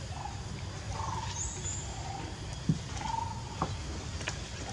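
Outdoor ambience: short animal calls repeat about once a second over a steady low rumble, with two light knocks in the second half.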